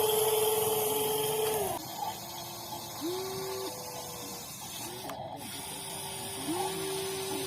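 Electric motors of a WLtoys 16800 metal RC excavator whining. A steady whine winds down about two seconds in, then short runs each spin up quickly and stop, the last starting near the end and holding.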